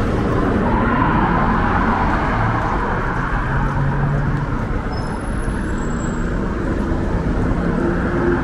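City street traffic: a steady wash of tyre and engine noise from passing cars.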